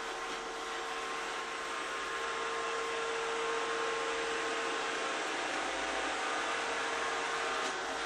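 Sencor SVC7020BK robotic vacuum cleaner running as it moves across a laminate floor: a steady whir with an even hum tone under it.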